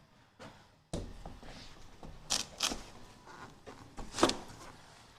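Knocks and clunks of a sliding glass window panel being handled and set into its frame track. A few sharp clicks come in the middle, and the loudest knock comes about four seconds in.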